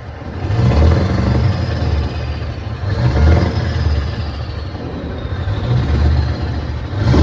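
Heavy truck's diesel engine being revved from idle, three swells of about a second each, with a fourth starting at the end.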